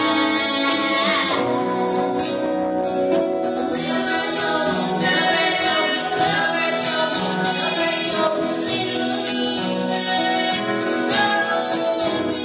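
Live band music with a woman singing, recorded on a cellphone from the audience, with a steady percussion beat.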